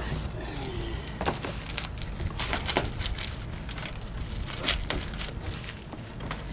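Cardboard box and packing rustling and knocking as a boxed lawn mower is unpacked by hand: a string of short crackles and taps over a steady low rumble.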